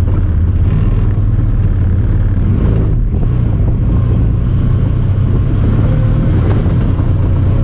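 Honda Talon 1000R side-by-side's parallel-twin engine running at a steady pitch while driving.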